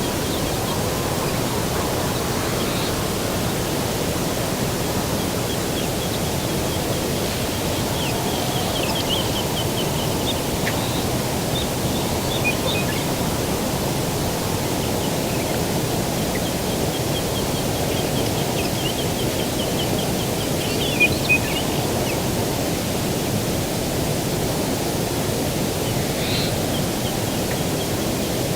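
Birdsong: rapid, high-pitched trills of quickly repeated notes, twice for several seconds each, with a few short chirps. Beneath them runs a steady rushing background of breeze.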